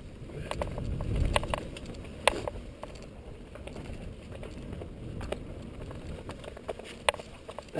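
Mountain bike rolling down a dirt and gravel trail: a steady low rumble of tyres over the ground, with irregular sharp clicks and rattles from the bike as it bounces over the bumps.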